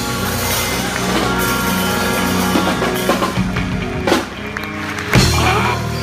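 A live band playing: saxophone, electric guitar, electric bass and drum kit, with a brief drop just after four seconds and a loud accent about five seconds in.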